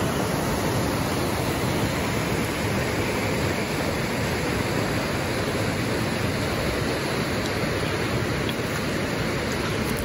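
Rocky creek and small waterfall rushing: a steady, even noise of water running over stones.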